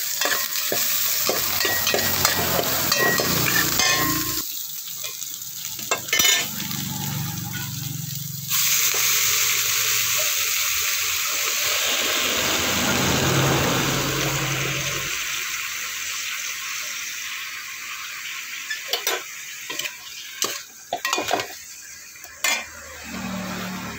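Ginger, shallots and green chilies sizzling in an aluminium pot, stirred with a metal spoon. About eight seconds in, raw pork pieces go into the pot and the sizzle jumps much louder, then slowly fades, with the spoon clinking against the pot several times near the end.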